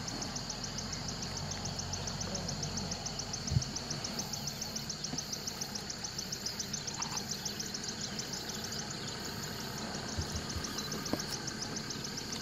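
Vehicle engine idling low and steady under a high, even chirping of about five pulses a second. A single thump about three and a half seconds in.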